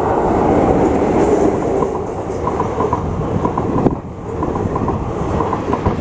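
An Indian Railways express hauled by a WAP-4 electric locomotive passes close at speed: a loud, steady rush of wheels on rail as the blue coaches go by. Rapid clickety-clack comes in groups of two or three as the bogies cross the rail joints.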